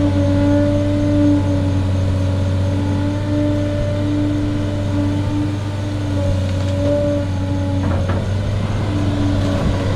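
Large excavator's diesel engine running steadily under load, with a held whine over the engine hum; a sharp clunk about eight seconds in, when the whine briefly drops out.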